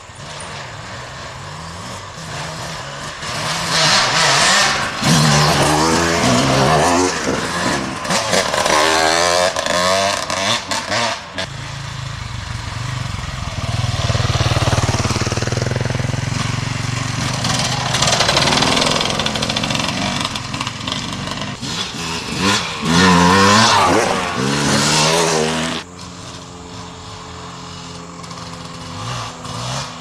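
Enduro dirt bike engines on a wooded trail, revving up and down with the throttle, loudest as a bike passes close. In the last few seconds a quieter, steadier engine note as another bike approaches.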